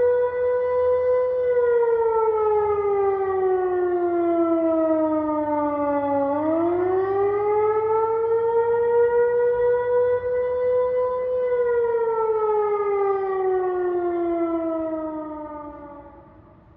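Federal Signal Modulator 6024 electronic siren sounding its wail tone, which is part of an armed-dangerous-person alert. The pitch holds, falls slowly, swings back up about six seconds in, holds again, then falls and fades near the end. It sounds thin, much like PA speakers.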